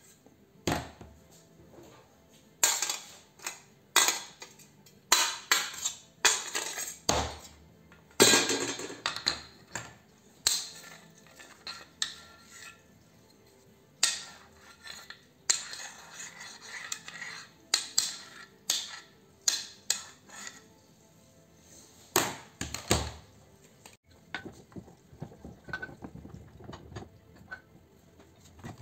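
Metal parts of a dismantled clothes iron being handled and set down on a workbench: irregular clinks, clatters and rattles of thin sheet metal, thinning out near the end.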